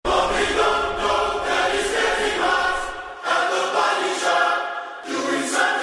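Music track opening with choral singing: layered voices holding sustained chords, easing off briefly about three seconds in and again near five seconds.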